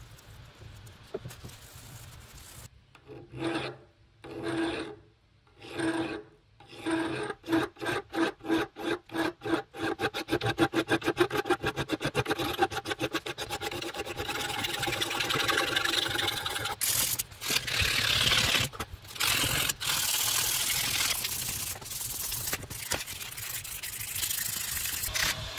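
A hand file rasping across the brass end cap of a kukri handle: separate strokes a few seconds in that quicken into a rapid back-and-forth. In the last third, abrasive paper is rubbed over the brass.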